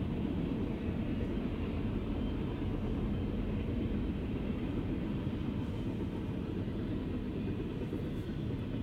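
Double-stack intermodal freight train's container well cars rolling past with a steady rumble of wheels on rail.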